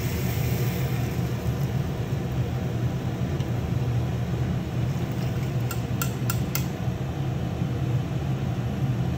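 Steady low hum of a noisy kitchen machine running throughout. About six seconds in, a metal ladle clinks lightly against a metal sieve four times in quick succession.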